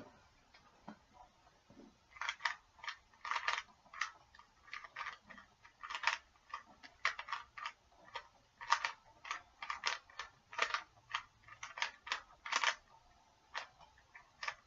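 A Rubik's Cube's plastic layers being twisted by hand: a run of quick, irregular clicks and rattles, about two or three a second, picking up about two seconds in.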